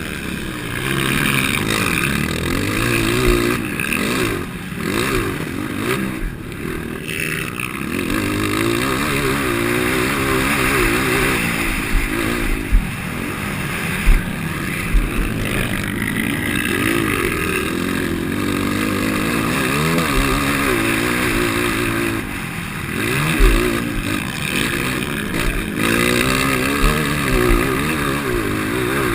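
230-class motocross bike engine revving up and down over and over as it races, with a few sharp knocks along the way.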